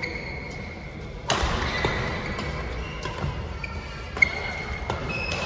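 Badminton rally in a large echoing hall: rackets striking the shuttlecock with several sharp cracks, the sharpest a little past four seconds in, with high squeaks of court shoes on the floor between them.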